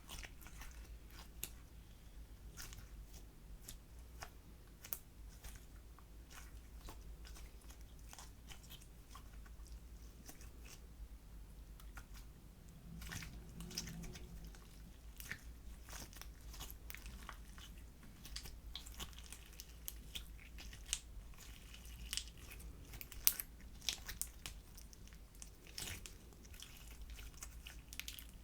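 Slime being kneaded and mixed by hand, giving soft sticky clicks and pops at irregular intervals.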